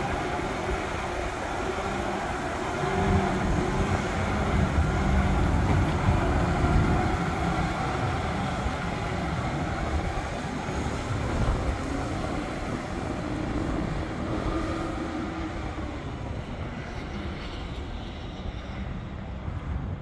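Case IH Steiger 580 four-wheel-drive tractor's diesel engine running as the tractor pulls away across gravel. It gets louder a few seconds in, then slowly fades as the tractor moves off into the distance.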